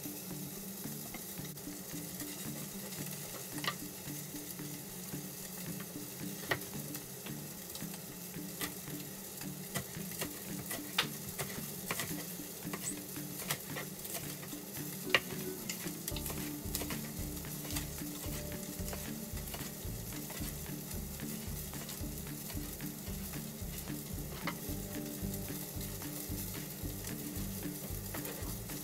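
Fish sizzling steadily as it fries in a pan without oil, with a scatter of sharp clicks in the first half.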